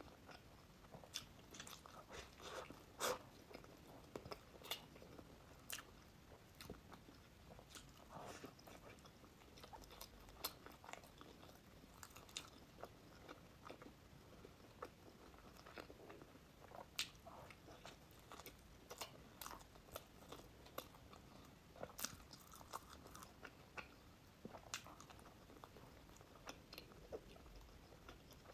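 Close-up eating sounds: a person biting and chewing crunchy pastry, with irregular crisp crunches and softer chewing in between.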